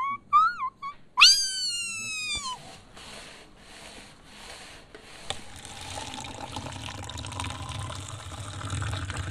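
Meowing calls: a few short rising-and-falling meows, then one long, loud falling meow about a second in. After it come a few soft pulses of hiss and, from about halfway, a steady rushing noise with a low rumble.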